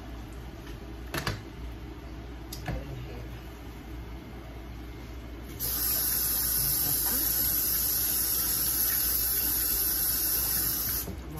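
A glass pot lid is set onto a frying pan with a light knock about a second in, and another small knock follows. Midway a steady, high hiss starts suddenly and runs for about five seconds, then cuts off suddenly near the end.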